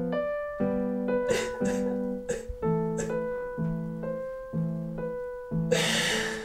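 Background piano music: a low two-note chord struck about once a second under a slow melody. A short rush of breathy noise comes near the end.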